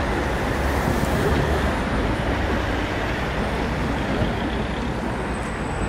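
Steady city road traffic, a low rumble of passing vehicles that swells briefly about a second in.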